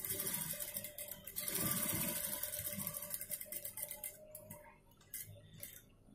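Industrial sewing machine running fast as it stitches a line across the fabric, with a short break about a second in and stopping about four seconds in; a few light clicks follow.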